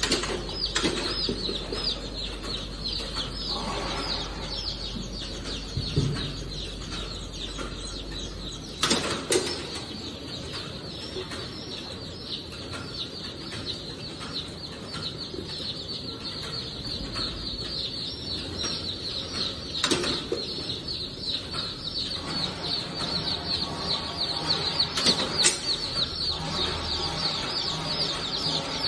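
Many baby chicks peeping continuously: a dense chorus of short, high, falling cheeps, several a second. A few sharp knocks stand out about 9, 20 and 25 seconds in.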